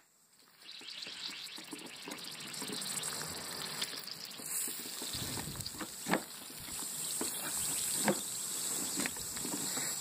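Pressurised water spraying with a hiss from a leaking threaded fitting on a PVC pipe tank as it is tightened with a pipe wrench. The hiss grows louder over the first few seconds and holds, with a few sharp clicks from the wrench. The tightening has made the leak worse.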